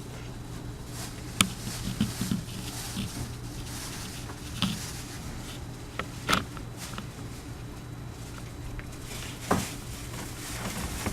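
A steady low hum with scattered soft clicks and knocks, the loudest a little over a second in and about six seconds in.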